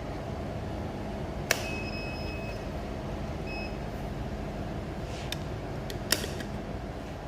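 Electronic beeps from a fibre-optic fusion splicer: a sharp click and then a steady beep of about a second, a short second beep, then a few sharp clicks, over a steady low hum of the machine.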